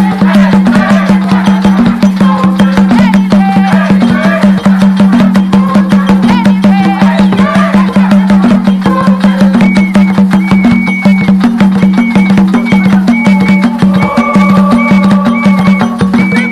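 Live traditional drumming on tall hand drums: a fast, steady beat. About ten seconds in, a short high note joins and repeats about twice a second.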